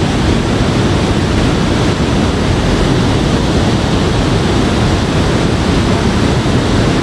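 Loud, steady rushing noise with no break, heaviest in the low end.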